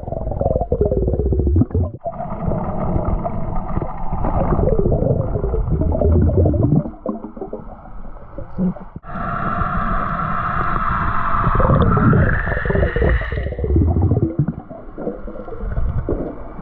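Underwater noise picked up by a submerged camera: boat engines and propellers droning and whining through the water, their pitch sliding down as boats pass, with water gurgling over the microphone housing. A higher whine joins in about nine seconds in and stops shortly before the end.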